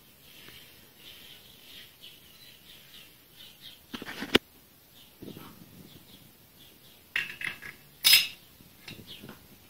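Steel parts of a homemade tool and cutter grinder clinking and clicking as they are handled: a few sharp metal clicks about four seconds in, a small cluster near seven seconds and the loudest click at about eight seconds.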